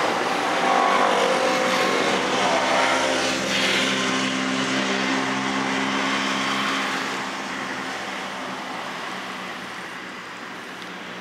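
A car driving past and away on the street, its engine note dropping in pitch early on, then running steadily and fading over the last few seconds, over general road noise.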